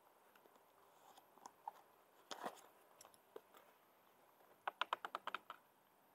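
A cat's claws and paws on plastic wheelie bins and a cardboard box: faint scattered clicks and a rustle, then a quick run of about eight sharp clicks near the end.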